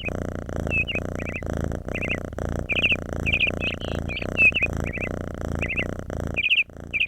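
A small bird chirping over and over, short high chirps about two a second, over steady background noise.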